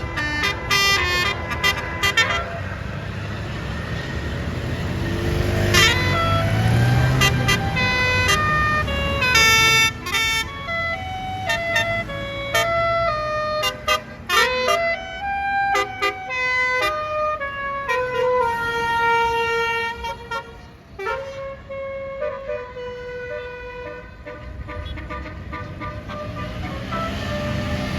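A bus's 'basuri' telolet musical horn playing a tune: quick runs of short staccato blasts near the start and again around the middle, and longer held notes in the second half. The low running of the bus engine sits beneath it.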